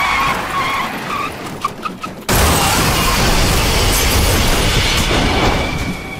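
Car tyres skidding, then about two seconds in a sudden loud crash: a car smashing into a table, with glass shattering and debris clattering for a few seconds before it eases off.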